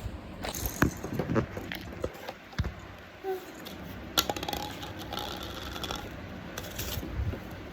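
Scattered light clicks and knocks of small hard toys being handled and set down, a few sharp taps among them.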